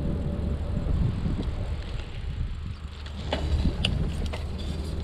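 Bicycle riding along a paved path, heard through a chest-mounted action camera: steady wind and rolling rumble on the microphone, with a few sharp clicks a little past halfway.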